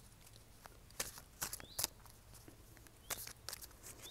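Oracle cards being shuffled and handled: a few faint, uneven clicks and rustles of the cards.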